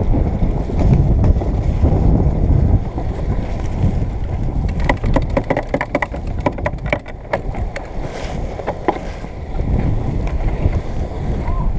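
Wind buffeting the microphone and water rushing along the hull of a sailing yacht heeled under sail. A run of sharp clicks and knocks comes about five to nine seconds in.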